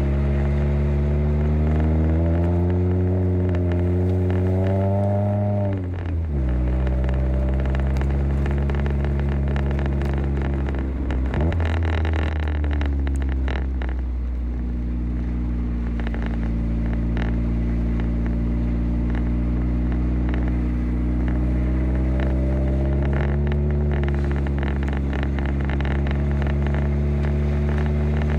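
Car engine heard from inside the cabin, its pitch climbing under acceleration for about five seconds, then falling away sharply near six seconds in. It dips again briefly near eleven seconds, then runs steadily with a slight rise late on.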